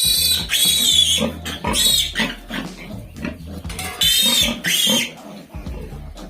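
Piglet squealing loudly in three high-pitched bouts, with shorter cries between them: the distress squeal of a young piglet being held for an iron injection.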